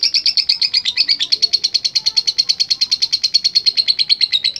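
Lovebird's long 'ngekek' trill: one unbroken chattering run of rapid, evenly repeated shrill notes, well over a dozen a second. Its pitch sinks slightly toward the end before it stops abruptly. This long ngekek is the song of a male lovebird in full voice (gacor).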